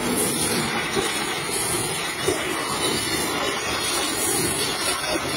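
Pressure washer lance spraying a jet of water against a truck's metal rear doors, a steady hiss.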